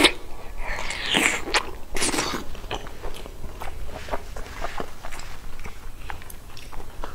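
Close-miked mouth sounds of someone eating fatty braised pork belly. A few louder wet bites and sucks come in the first two seconds or so, then many small smacking chews with little clicks.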